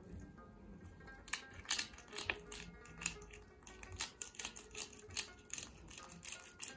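Pepper grinder being twisted over raw lamb chops: a run of quick, irregular clicks, a few a second, starting about a second in, over soft background music.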